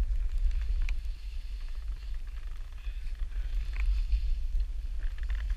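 Low rumble of wind buffeting a pole-mounted action camera's microphone, with a few faint ticks.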